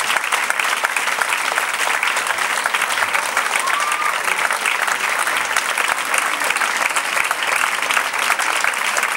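Dense, steady applause from a theatre audience and the performers on stage, many hands clapping at once.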